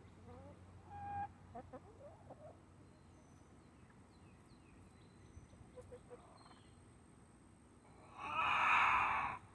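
Scattered bird chirps and calls, one short pitched call about a second in. About eight seconds in comes a brief, louder rushing noise lasting just over a second.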